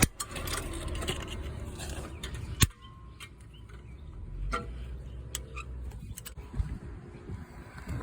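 Scattered metallic clicks and knocks of hand tools, a big screwdriver among them, working on a car's rear brake assembly. The loudest is a single sharp knock about two and a half seconds in, over a low rumble that drops away after it.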